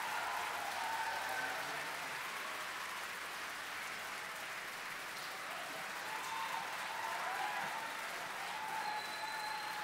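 A large concert audience applauding and cheering after the last song has ended, with scattered shouts rising out of the clapping.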